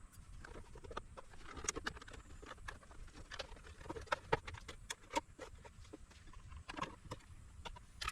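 Irregular clicks and light knocks of tools and plastic case parts being handled while a portable power station is taken apart.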